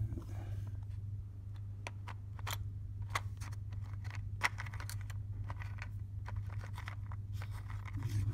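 Fingers sifting through a compartment of small rubber toy-car tyres in a plastic parts organiser: a scatter of light clicks and rattles, busiest from about two seconds in. A steady low hum runs underneath.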